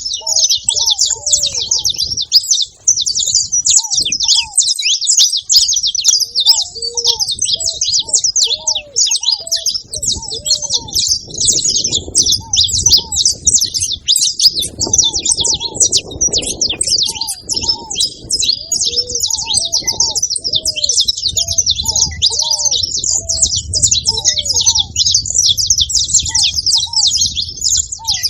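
Saffron finches chattering in a dense, unbroken high twitter, with a ruddy ground dove cooing underneath in short, low, repeated notes.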